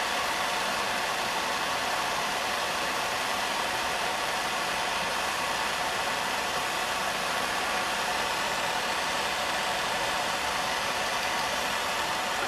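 Propane torch flame burning with a steady hiss, heating a steel screwdriver tip until it is non-magnetic for hardening.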